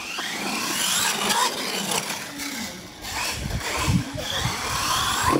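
R/C monster truck driving on a concrete floor: its motor whines up and down with the throttle over the scrub of the tyres, with a few low thumps about midway.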